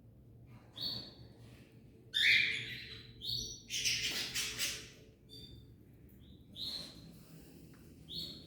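Cage birds calling: short chirps repeated every second or so, with two louder, harsher squawks about two and four seconds in.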